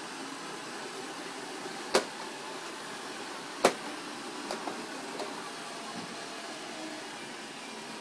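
Robot vacuum cleaners (iRobot Roombas) running on carpet with a steady whir. Two sharp knocks come about two and three and a half seconds in, followed by a few lighter taps.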